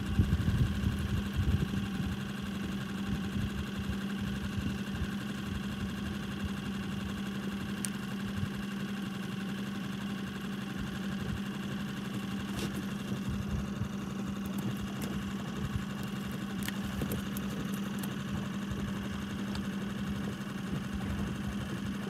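Boat's outboard motor running steadily at low trolling speed, a constant hum with a few faint ticks.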